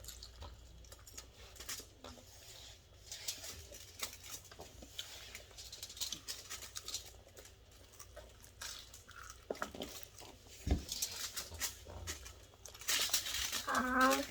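Eating sounds: chewing and lip smacking with scattered small clicks and crunches of food handled by hand, and a single dull thump about eleven seconds in.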